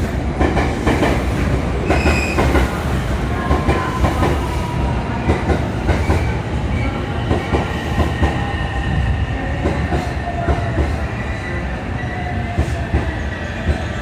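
A JR West 225/223-series electric train pulling into the platform and braking. Its motors whine with tones that fall slowly in pitch as it slows, wheels click over rail joints amid a steady rumble, and there is a brief high wheel squeal about two seconds in.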